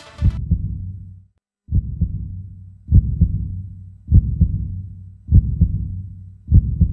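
Electronic music cuts off just after the start, giving way to a heartbeat sound effect: a deep double thump about every 1.2 seconds, each dying away with a low hum, used as a suspense cue.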